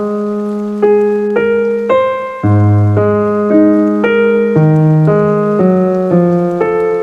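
Keyboard music with a piano-like tone: a melody of notes stepping up and down about twice a second over a long-held low note.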